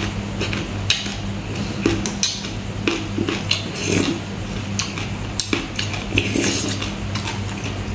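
Close-up eating sounds: a metal spoon clicking against the plate and lips slurping the spicy sauce and salad off the spoon, repeated several times. A steady low hum runs underneath.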